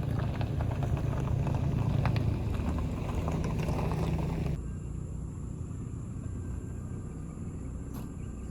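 Steady rumble of a car driving, engine and road noise, which drops quieter and thinner about halfway through.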